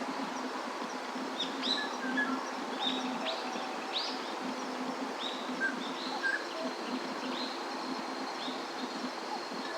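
Birds chirping, a run of short, high chirps repeated about twice a second over a steady background hiss. A thin, steady high whine, like a singing insect, joins about six seconds in.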